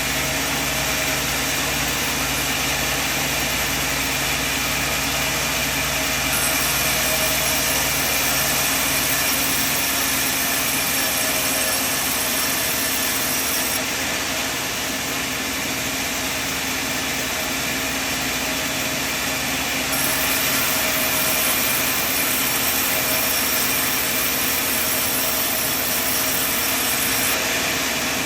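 Sawmill machine running steadily, with a higher whine coming in twice for several seconds each.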